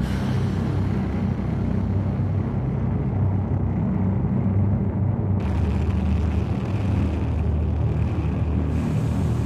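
A steady low rumbling drone.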